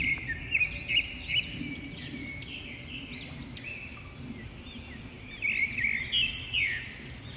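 Small birds chirping: many short rising-and-falling chirps overlapping one another, over a faint low background hum.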